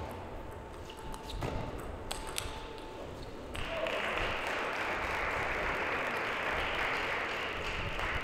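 Table tennis rally: for about three and a half seconds, a quick string of sharp clicks as the plastic ball is struck by the bats and bounces on the table. Then the crowd bursts into applause once the point is won, and it keeps going to the end.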